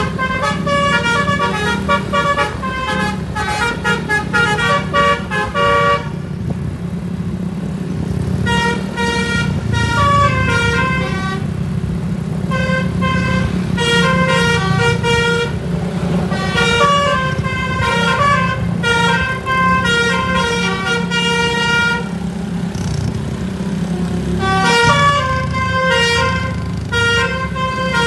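SJM Trans bus's basuri horn, a multi-note musical air horn (telolet), playing a tune in quick stepped notes over a steady low engine rumble. It breaks off twice for about two seconds.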